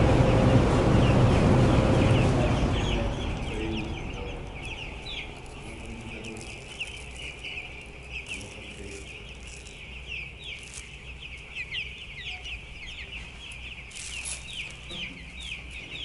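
Many young broiler chicks peeping at once, a dense high-pitched cheeping. A loud low rumble fades away under it over the first few seconds.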